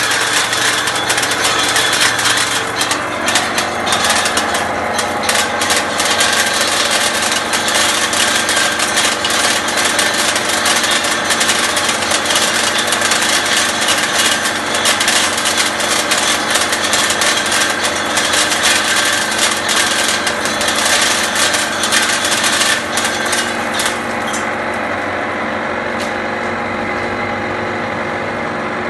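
Candlenut-cracking machine running: a steady motor hum under a dense clatter of nuts being cracked and shells rattling out of the chute. The clatter drops away near the end, leaving the hum.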